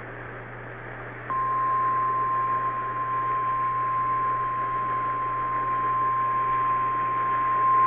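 Emergency Alert System relay on AM radio: faint radio hiss, then about a second in a single steady alarm tone switches on and holds. This is the National Weather Service 1050 Hz warning alarm tone, the attention signal that announces a warning broadcast.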